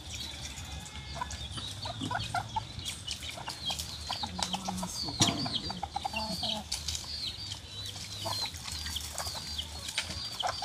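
Chickens clucking, with many short high-pitched chirps repeating throughout and a steady low hum beneath.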